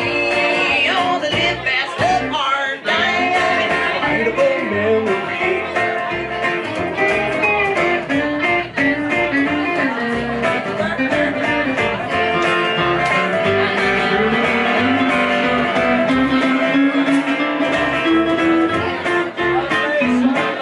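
Live country band playing an instrumental break between verses: electric guitar, upright bass and acoustic guitar in a honky-tonk tune.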